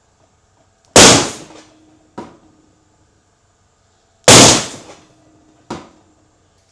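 Two hard hammer blows on a 6L80 transmission part, about three seconds apart, each followed a second or so later by a lighter knock; the first blow leaves a short metallic ring. The part is being knocked loose during teardown.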